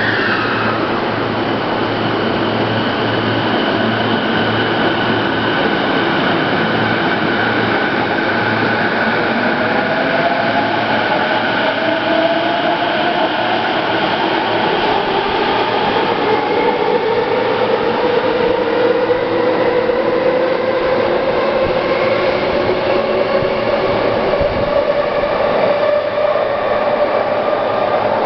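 Electric commuter train running through the station, its wheels and running gear making a steady loud noise. Its traction motors whine in several tones that climb slowly in pitch from about eight seconds in as the train gathers speed.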